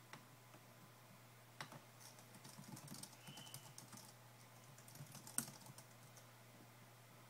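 Faint scattered clicks, taps and light rustling of hands handling trading cards on a desk, with one sharper tap about five and a half seconds in.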